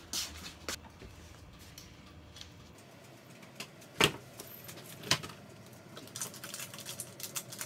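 Scattered sharp knocks and clicks from people moving about a kitchen in slippers and socks, the loudest knock about four seconds in, with quicker light tapping near the end.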